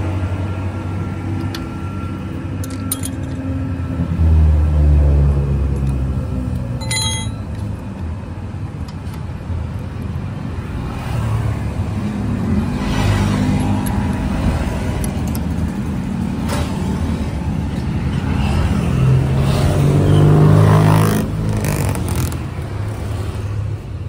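Motor vehicle engines running in the street, swelling and fading several times as they pass, with a short metallic clink about seven seconds in.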